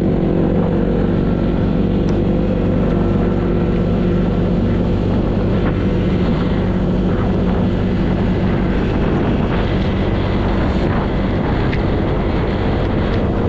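Honda PCX150 scooter's single-cylinder engine running steadily at cruising speed, with wind rushing over the microphone.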